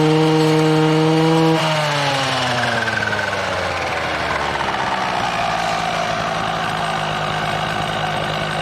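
Husqvarna 240R brushcutter's two-stroke engine running at high speed with a steady note. About a second and a half in, the throttle is let off and the revs fall away over a few seconds to a rougher, quieter running sound.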